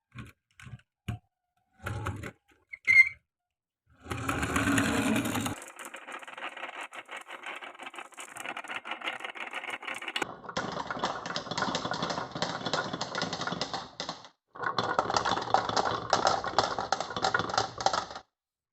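Marbles rolling and clattering along a wooden marble run. A few separate clicks come first, then from about four seconds in a continuous rapid rattle of balls running over the wooden slopes and rails, with a short break about 14 seconds in.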